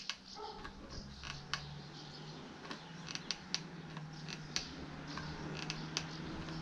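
Scattered light clicks and creaks from a corded electric stapler being handled and positioned against carpet felt on a wooden box, with a faint low steady hum behind.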